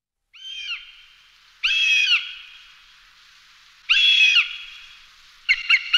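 A bird calling: three drawn-out screeching calls a second or two apart, then a quick run of short calls, about five a second, near the end.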